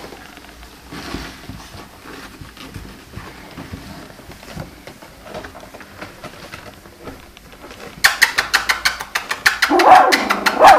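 Young puppies, about two weeks old, shuffling faintly on a blanket; about two seconds before the end a fast, loud run of sharp clicks starts, and near the end a puppy begins whining and yelping in short cries that rise and fall.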